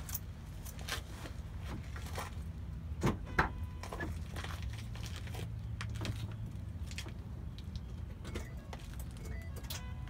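Irregular light metallic clicks and clinks, the sharpest pair about three seconds in, over a steady low hum.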